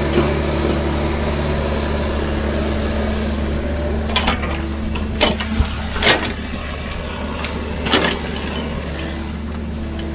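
Excavator's diesel engine running steadily, with four sharp knocks between about four and eight seconds in.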